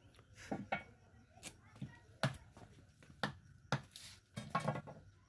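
A hand hammer striking a rubber-lined cast-iron butterfly valve body: about seven sharp knocks, irregularly spaced roughly half a second to a second apart.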